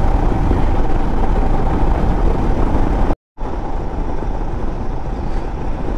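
Motorcycle running at steady highway speed, with engine and wind noise on the microphone. The sound cuts out completely for a moment about three seconds in, then carries on unchanged.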